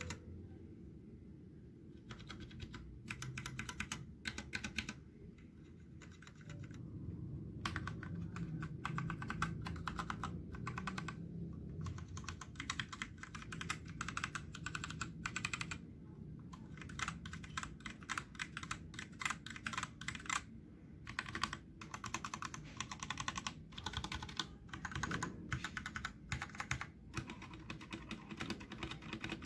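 Typing on a Tecware B68 65% mechanical keyboard with stock Gateron Brown tactile switches and PBT keycaps, neither lubed nor modded. It is a quick run of key clacks that starts about two seconds in, with a few short pauses.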